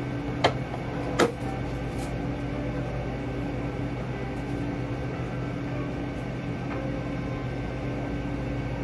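Steady room hum of restaurant ventilation or refrigeration, with a low drone. Two sharp clicks come about half a second and just over a second in.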